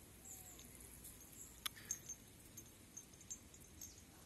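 Near silence: faint outdoor ambience with scattered short high chirps and a single sharp click about one and a half seconds in.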